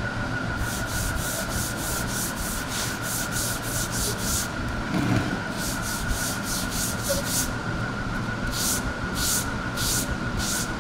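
Foam sponge swept in quick strokes across a coloured EVA sheet, spreading adhesive paste: a rhythmic swishing of about three strokes a second. It pauses twice, and the last few strokes are slower.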